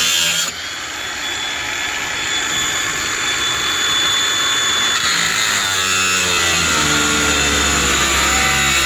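Makita angle grinder with a cutting wheel running and cutting into metal trailer tubing. The sound drops suddenly about half a second in, then builds again, with the motor's pitch shifting after the middle.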